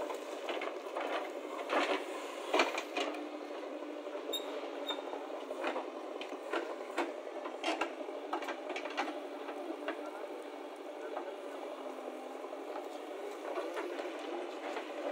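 A JCB 3DX backhoe loader working soil: a steady machine noise with irregular knocks and clatter as the bucket digs and dumps earth into a steel tractor trolley.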